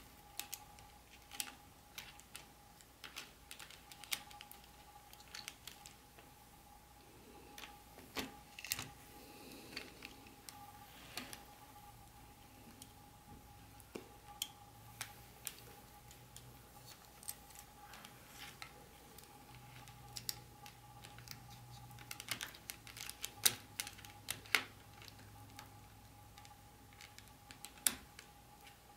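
Irregular small clicks and taps of the train set's parts being handled, over a faint steady hum.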